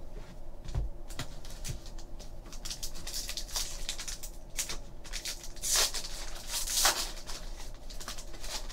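Trading cards rustling and clicking against each other as they are flipped through by hand, with crinkling of a foil card-pack wrapper. The loudest crinkles come about six and seven seconds in.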